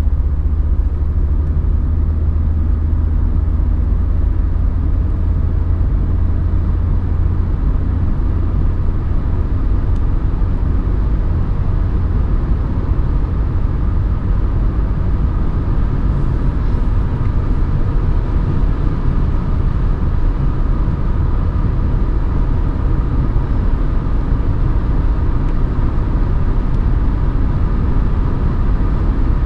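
Mercedes 190D's 2.5-litre five-cylinder OM602 turbodiesel running under steady cruise, a continuous low drone with road noise and a faint steady whine.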